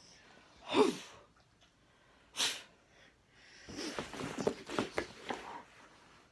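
A dog snorting and sniffing: a loud snort about a second in and a sharp hissing huff a moment later, then nearly two seconds of scuffling and small taps.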